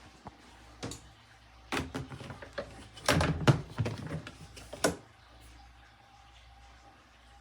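A run of knocks and clatters, like hard objects being handled and set down, over about four seconds and loudest in the middle, then only a faint steady hum.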